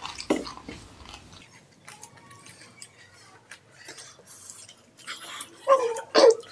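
Chewing and soft mouth noises from mouthfuls of panipuri (crisp puris filled with spicy water). Near the end come two short, loud mouth-closed vocal sounds about half a second apart.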